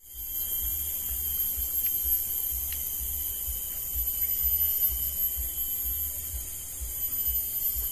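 Tropical forest ambience: a steady high-pitched insect drone with a thin, constant whine, over an uneven low rumble of wind on the microphone.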